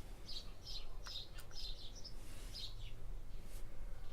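A bird chirping in the background, a quick series of short high chirps, with a couple of faint small ticks about a second in.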